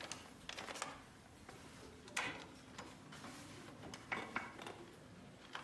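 Sheets of letter paper rustling as they are handled: a few short rustles, the sharpest about two seconds in and again around four seconds in, over faint room tone.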